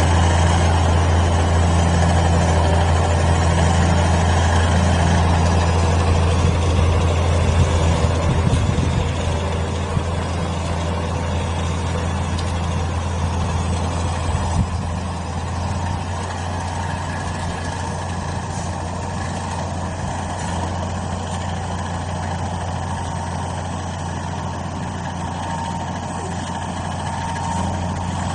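Large diesel farm tractor's engine running steadily with a vibrating burdock harvester mounted behind it, a low, even hum. The hum eases a little after about ten seconds.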